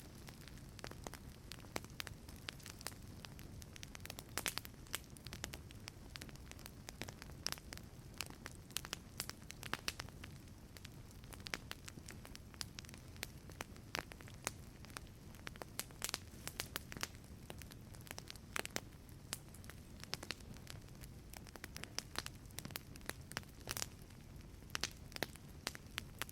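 Wood fire crackling in a fireplace: a steady low rumble of the flames with irregular sharp pops and snaps, several a second.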